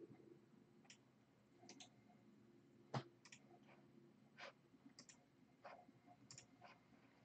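Faint, irregular clicking of a computer keyboard and mouse, about a dozen clicks, with one louder click about three seconds in, over a quiet room.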